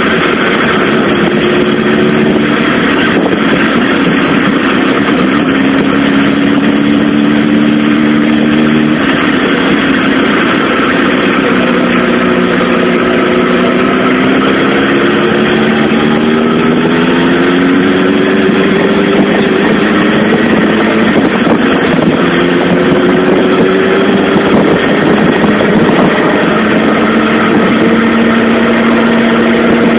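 Suzuki GSX-R SRAD's inline-four engine pulling the bike along, its note rising and falling several times with throttle and gear changes, over a steady rush of wind and rain noise.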